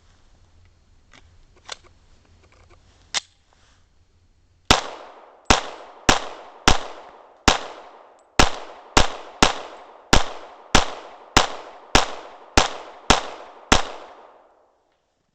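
Glock 24 .40 S&W pistol fired about fifteen times in a steady string, roughly two shots a second, each shot echoing. A few faint clicks come before the first shot.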